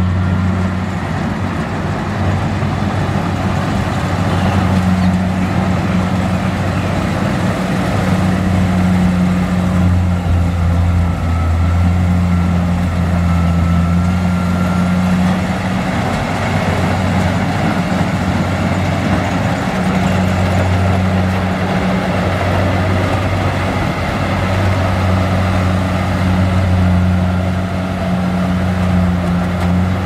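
Kubota DC70 combine harvester's diesel engine running steadily at a constant pitch as it cuts and threshes rice, with a steady mechanical noise over the engine hum.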